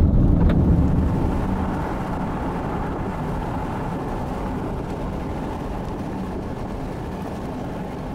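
Steady low rumble of a vehicle driving, with tyre and wind noise heard from inside the car; louder at first, it eases down over the first couple of seconds and then holds steady.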